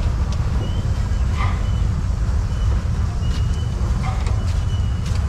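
Steam traction engine running while it moves along: a steady low rumble with a few light clanks.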